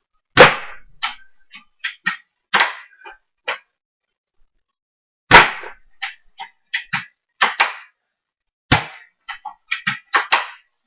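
Airsoft L96 bolt-action sniper rifle being fired: two loud sharp shots about half a second in and about five seconds in, and a third sharp crack near nine seconds, each followed by a run of quicker, quieter clicks and clacks.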